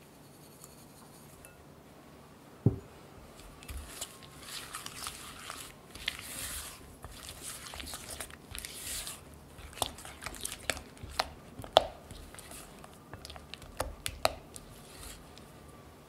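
A silicone spatula mixes sugar into soft cream cheese in a glass bowl: wet swishing and scraping strokes, then a run of sharp clicks and taps where the spatula knocks against the glass. There is one sharp knock a few seconds in, and the loudest tap comes in the second half.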